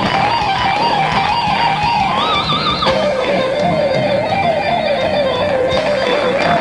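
Music with electric guitar: a held lead melody line with a steady wobble, stepping up about two seconds in and dropping lower a moment later.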